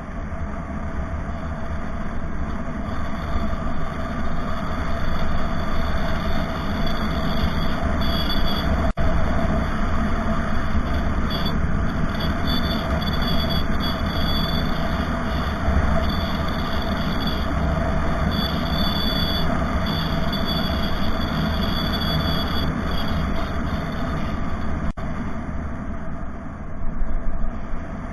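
A vehicle travelling steadily: a continuous low rumble of engine and road noise, with thin high tones that come and go through the middle.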